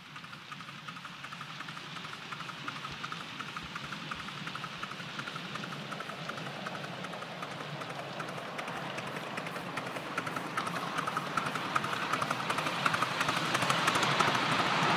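Miniature live-steam locomotive hauling a riding train along a garden railway track, running with a rapid ticking beat that grows steadily louder as the train draws near and passes close.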